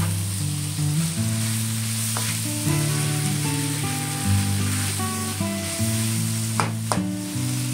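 Pork igado sizzling in a wok as it is stir-fried with a spatula, the spatula scraping the pan sharply about two seconds in and again near the end. Background music plays throughout.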